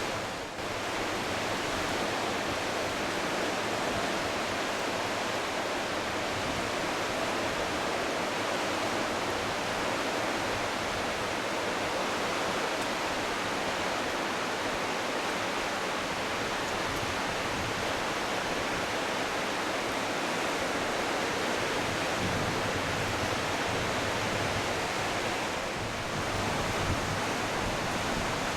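The Smith River in full flood: a steady, even rushing of fast, high water.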